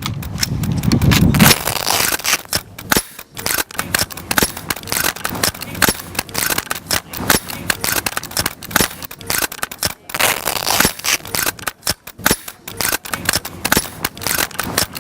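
Many rifles firing at once on a range, sharp shots coming irregularly and overlapping several times a second. A deep rumble sounds in the first second and a half.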